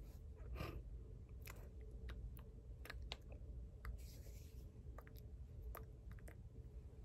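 Faint scattered clicks and smacks from hands and mouth during sign language, over a steady low room hum, with a brief rustle of hands brushing together about four seconds in.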